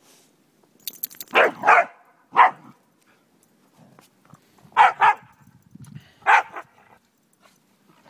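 Corgis barking in play: about six short, sharp barks in three bunches, two close together near the start, a pair about five seconds in, and a last one a second later.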